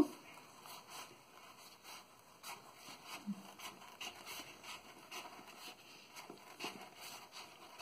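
Scissors cutting through a sheet of EVA craft foam: a quiet run of short, irregular snips.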